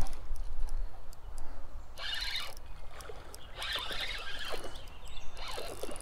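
Shimano Stradic spinning reel being cranked in three short raspy bursts, about two seconds in, in the middle and near the end, while a hooked smallmouth bass is played on the line.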